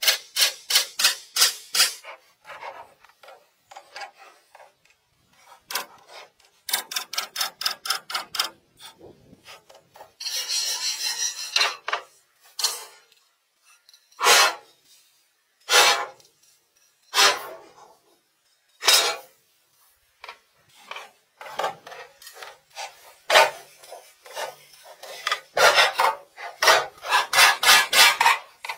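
Hand saw cutting wooden boards in runs of quick back-and-forth strokes, about five a second. In the middle there is a longer continuous scrape, followed by a few slow single strokes spaced well apart.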